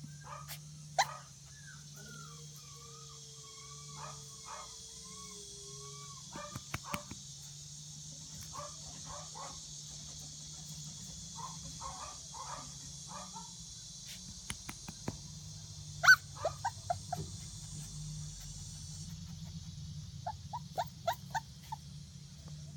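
Entlebucher Mountain Dog puppy giving short, high yips and barks in scattered bursts. The loudest bark comes a little past the middle, and a quick run of five or six yips comes near the end.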